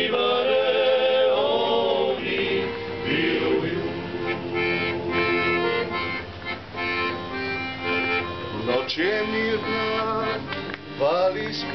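Accordion playing the instrumental passage of a Dalmatian klapa song, held chords and a melody line. Male voices sing sustained harmony in the first couple of seconds and come back in just before the end.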